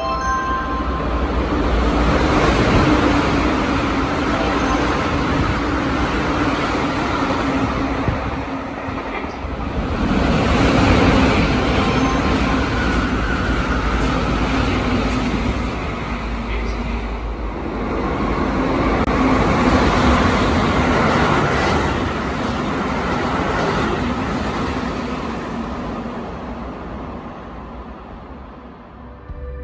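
Electric train running through the station at speed without stopping: loud wheel-on-rail rumble and rushing noise that swells and eases a few times, then fades away near the end.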